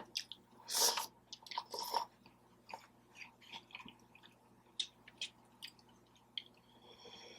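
Close-up chewing and wet mouth sounds of someone eating birria tacos: irregular smacks and clicks. A high squeak starts near the end.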